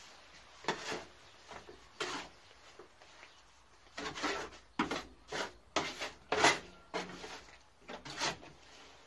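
Mortar being scooped and scraped by hand in a steel wheelbarrow: short, irregular scraping strokes, a few at first and then coming quicker from about four seconds in.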